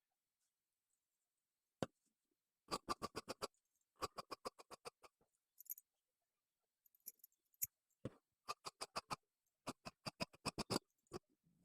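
Tailor's scissors cutting through dress fabric: several runs of quick, even snipping clicks, about ten a second, with short pauses between runs.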